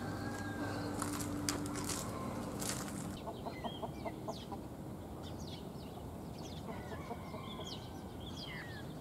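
Domestic hens clucking, with a few sharp taps. About three seconds in, the sound changes abruptly to wild birds chirping and calling, starting with a quick run of short notes.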